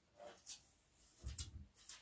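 Faint handling sounds of salvaged computer parts on a metal case panel: soft rubbing with a few light clicks and knocks, one about half a second in and a small cluster around the middle.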